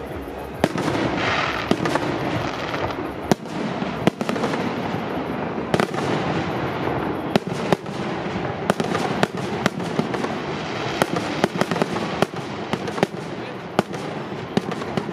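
Fireworks display: aerial shells bursting with sharp bangs about once a second, coming faster in the second half, over a steady crackle from the burning stars.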